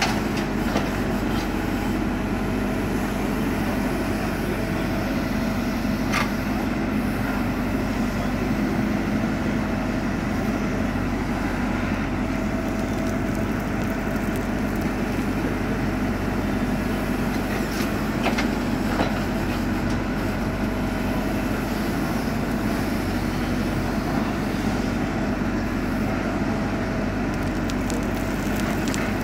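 JCB 4CX backhoe loader's diesel engine running steadily under work, with a few short knocks about six seconds in and again around eighteen seconds in.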